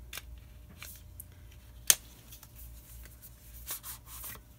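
Eyeshadow palette packaging being handled and opened by hand: light rustling and scattered small clicks, with one sharp click about two seconds in.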